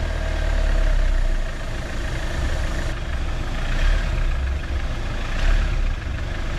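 Class C motorhome's engine running steadily as the motorhome reverses slowly.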